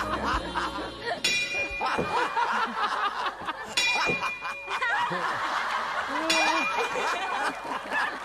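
Ring bell tolled slowly, three strikes about two and a half seconds apart, each ringing on: a ten-count bell salute. A studio audience laughs throughout.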